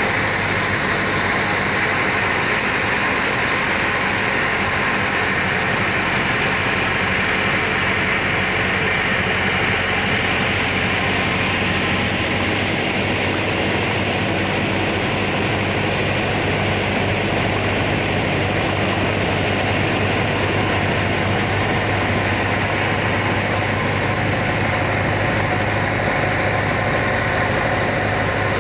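Boat engine running with a steady low hum under a constant rush of noise, heard from on board at sea.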